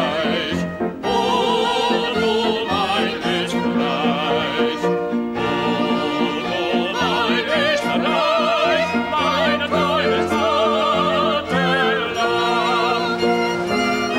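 A man and a woman singing a duet with heavy vibrato over an orchestral backing with strings.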